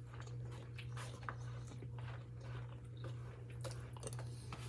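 Close-miked chewing of food, soft wet smacks and clicks at irregular intervals, over a steady low hum.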